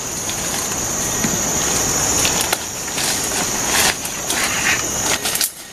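Leaves and twigs rustling and snapping as someone pushes through dense undergrowth, with scattered sharp cracks. A steady high insect drone runs underneath and stops about five seconds in.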